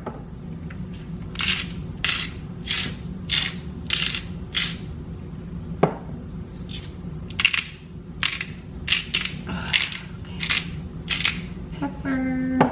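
Salt and pepper grinders being twisted over green beans in a pan: a steady run of short gritty grinding strokes, with a single knock about halfway through.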